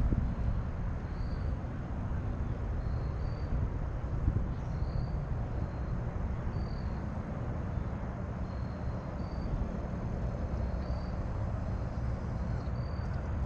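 Wind buffeting the microphone, a steady low rumble, with a faint high two-note chirp repeating about every two seconds.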